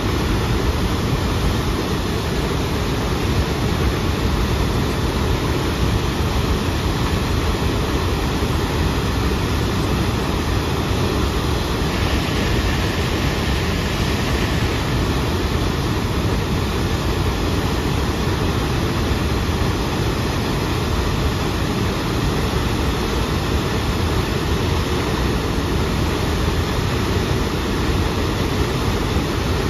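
The Upper Tahquamenon Falls, a broad waterfall, pouring steadily: a continuous deep rush of falling water with no break or change in level.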